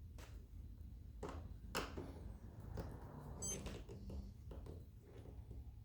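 Faint scattered clicks and knocks, about half a dozen, from handling screws and a metal hinge bracket being fitted to a fridge door.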